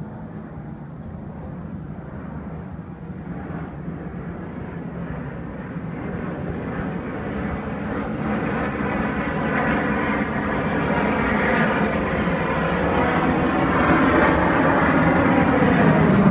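Aircraft engine noise that grows steadily and smoothly louder throughout, as of a plane approaching overhead.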